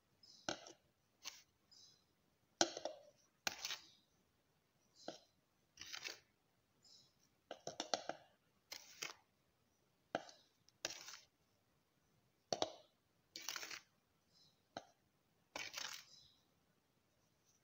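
A spoon scraping cardamom powder off a plate and tipping it into a plastic jar: short, irregular scrapes and taps, about one a second.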